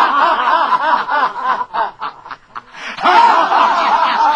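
Laughter in two long bouts, one breaking off about two seconds in and the next starting about three seconds in, answering the promises just made to it.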